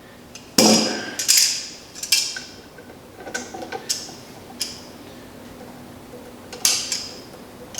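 Small steel parts and hand tools clinking and knocking against each other, a handful of separate sharp clicks with brief rings, as a pin and cotter pin are worked into place on a tractor assembly.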